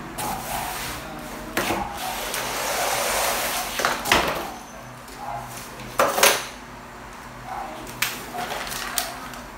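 Cardboard box and packing wrap rustling and scraping as a wrapped wall clock is slid out of it, with several sharp knocks and bumps of cardboard, the loudest about six seconds in.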